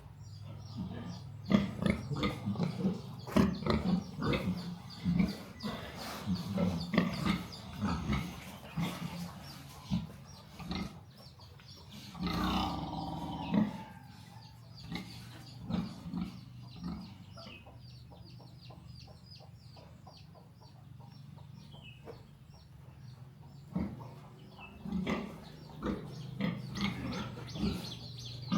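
Pigs grunting in short, irregular bursts, thickest in the first few seconds and again near the end, with one longer, louder call about twelve seconds in.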